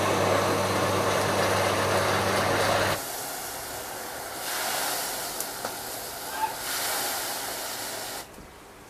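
Electric blender running for about three seconds, its motor humming as it grinds a wet spice paste, then cutting off abruptly. After it comes a steady sizzling hiss of frying in a wok over a wood fire, with a few small crackles.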